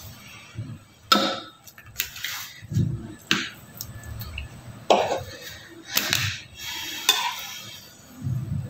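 Metal offset spatula and cake scraper working chocolate ganache: about half a dozen short, sharp scrapes and clinks as it is scooped from a glass bowl and smoothed onto the sides of the cake.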